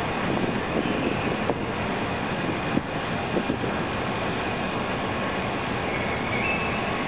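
Steady city traffic noise, a continuous hiss and rumble, with a few small clicks in the middle.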